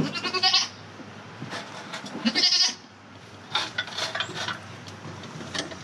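Nigerian Dwarf goat bleating: loud, quavering calls, one near the start and another about two seconds later, with more shorter calls after.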